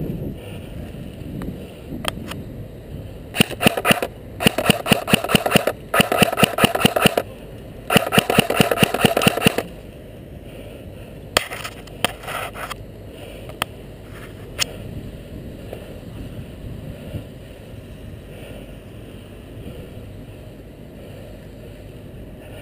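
Airsoft electric rifle firing on full auto: four loud bursts of rapid shots in the first ten seconds, then a few shorter bursts and single shots, over low wind rumble on the microphone.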